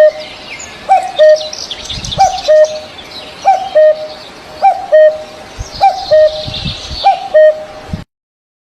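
A bird repeats a short, low two-note call about once a second, while other birds chirp and twitter higher up. The sound cuts off abruptly near the end.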